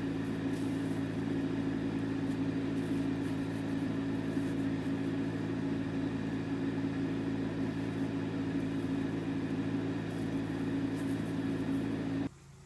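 A steady hum of several held low tones over a faint hiss, like a motor or fan running, which cuts off suddenly near the end.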